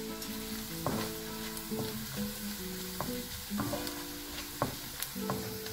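Chopped garlic and dried prawns sizzling in hot oil in a non-stick wok, stirred with a plastic slotted spatula that scrapes and taps against the pan several times, frying until crisp. Background music with plucked notes plays underneath.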